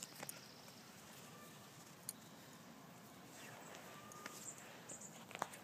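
Near silence: quiet outdoor ambience with a few faint, short, distant bird chirps and a light tap about two seconds in.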